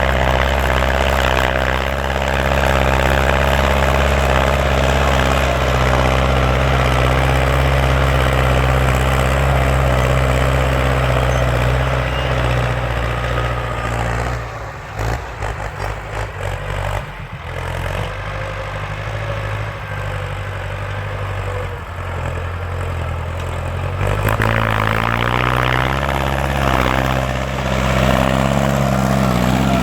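Ford farm tractor engine running loud under throttle. About halfway through it eases off and runs unevenly for a few seconds, then climbs in pitch again near the end as it is revved back up.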